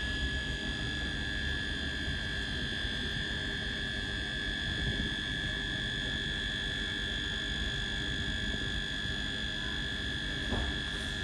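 ScotRail Class 385 electric train standing at the platform, its onboard electrical equipment giving a steady high-pitched whine over a low rumble. A single light knock near the end.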